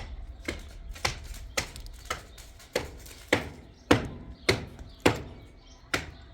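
Hammer striking metal in an even, steady rhythm, a little under two blows a second, each blow a sharp clang with a short ring.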